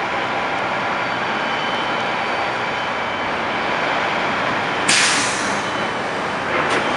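Busy street traffic with heavy trucks running and passing close by. About five seconds in, a truck's air brakes let out a sudden sharp hiss that fades within a second, and a shorter hiss follows near the end.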